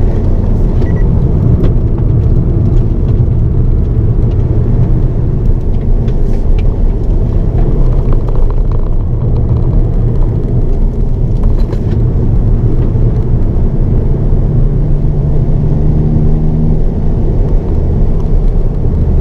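Cabin sound of a Hyundai Avante N (Elantra N) being driven hard on a circuit: its turbocharged 2.0-litre four-cylinder engine runs loud under load, the engine note shifting up and down in pitch, with heavy tyre and road rumble underneath.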